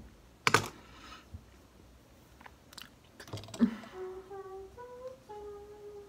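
A brief sharp noise about half a second in and a few faint ticks as makeup is handled, then a woman humming a short tune of held notes that step up and down over the last two seconds or so.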